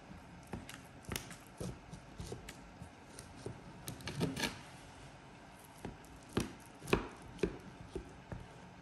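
Serrated knife cutting through a baked pie with a chopped-walnut topping, in short irregular strokes with crisp knocks, the loudest about four and seven seconds in.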